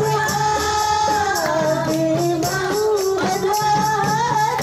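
Women singing a melody together into microphones over a PA, with a steady hand-percussion beat with jingles behind them.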